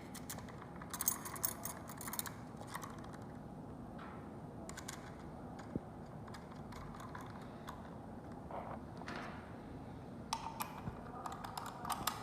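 Irregular light clicks and taps from the L300 smart door lock and its parts being handled and fitted, in small clusters with a busier run near the end.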